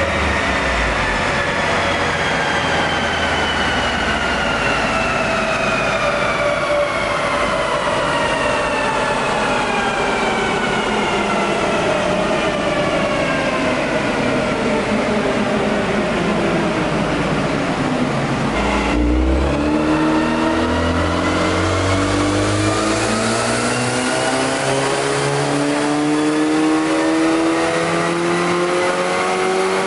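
Hyundai Genesis Coupe 2.0T's turbocharged four-cylinder running on a loaded chassis dyno: the revs fall slowly for most of the first twenty seconds as the engine winds down, then after an abrupt break the revs climb steadily for about ten seconds in a long, loaded dyno pull.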